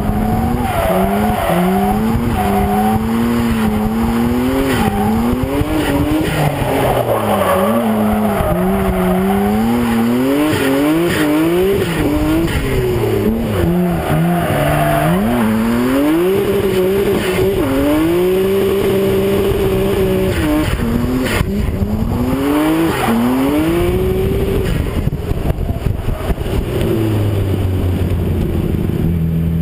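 Drift car's engine revving hard, its pitch swinging up and down again and again through a drift, with tyres squealing and sliding, heard from a camera mounted low on the car's side. Near the end the engine settles to a steady, lower note.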